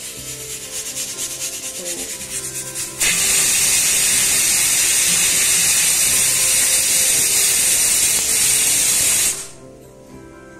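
Hot oil crackling lightly in a frying pan. About three seconds in, a loud steady hiss starts suddenly, drowns out everything else for about six seconds, then dies away quickly.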